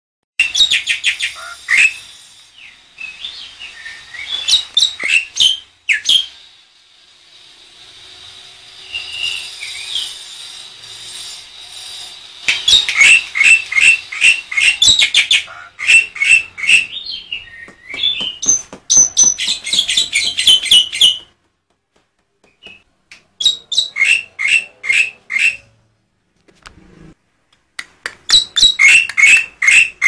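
Black-winged myna (jalak putih) singing loudly: runs of sharp, rapidly repeated notes at several a second, broken by quieter warbled passages and short pauses.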